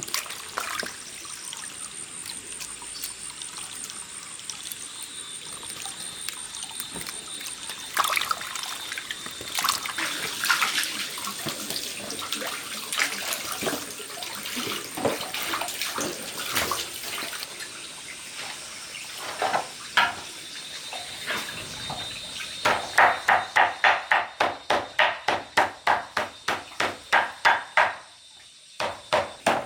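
Water running and splashing as something is washed, with scattered knocks. About two-thirds of the way in it gives way to fast, even chopping on a wooden board, about two or three strokes a second, which pauses briefly near the end and then starts again.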